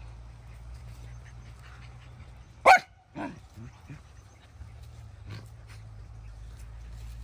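Dogs in rough play-fighting: one sharp, loud bark about two and a half seconds in, followed by a few quieter short yips.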